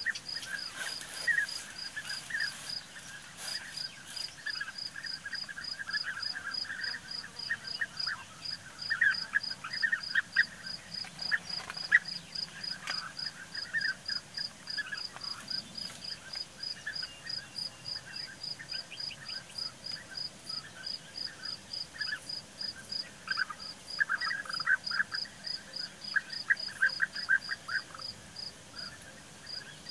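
European bee-eaters calling at their nesting colony: clusters of short, rolling, trilled calls that come again and again, thickest twice, with birds squabbling over a nest hole. A steady, fast, high-pitched pulsing runs underneath.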